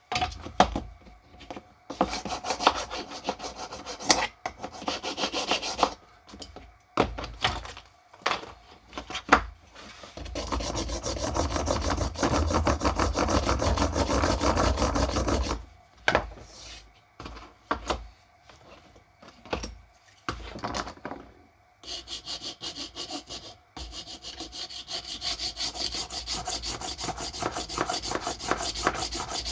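Hand file rasping back and forth over the cut edges of a plastic socket holder, taking off the jagged edges, in spells of strokes with a long unbroken stretch about ten seconds in and another from about twenty-two seconds on. A few sharp knocks of the piece being handled come between the spells.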